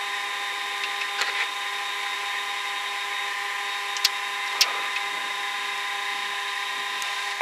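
Cockpit noise of a Cessna Citation Encore C560 slowing on its landing rollout: a steady whine from its turbofan engines with several held tones, broken by a few short sharp knocks, about a second in and again around four and four and a half seconds in.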